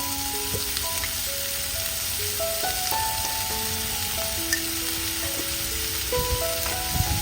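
Food sizzling in hot oil, a steady hiss, under background music with a slow melody of held notes. There are a couple of soft knocks near the end.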